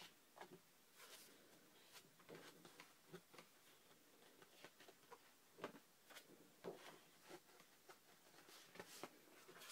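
Faint, irregular rustles and light taps of paper being handled, as pages of an artbook and loose cards are turned and moved, over near silence.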